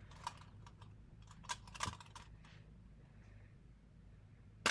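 Faint, scattered clicks and crinkles of a taped candy package being handled and picked open, with a few sharper ones around the middle.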